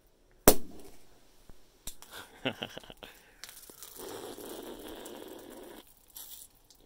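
Cork popping out of a Korbel sweet rosé sparkling wine bottle about half a second in, a single sharp pop. Scattered small knocks follow, then a steady hiss lasting a couple of seconds.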